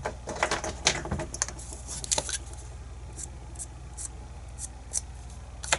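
Light clicks and taps of small metal lock parts being handled, the disassembled cylinder's core and pins: a busy run of clicks over the first two seconds or so, then a few faint high ticks.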